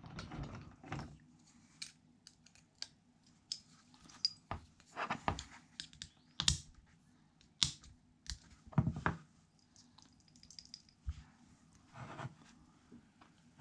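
Small steel gearbox parts of a 125 pit bike being handled: irregular clicks, taps and short scrapes of metal on metal as a gear and clip are worked on the gearbox shaft with a small pick tool.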